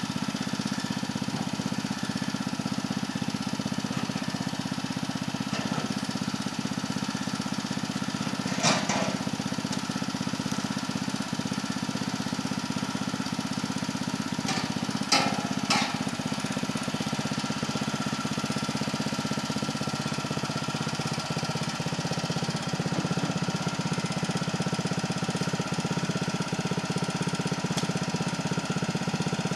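The small engine of a motorised mechanical wheelbarrow (mini dumper) idling steadily. A few sharp knocks stand out, about 9 seconds in and twice around 15 to 16 seconds, as oil palm fruit bunches are dropped into its steel bin.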